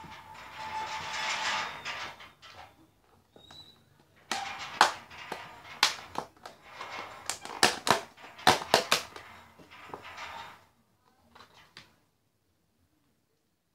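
Plastic bag and shredded-paper packing being handled and crumpled: rustling at first, then many sharp crackles from about four seconds in, before the sound cuts off suddenly.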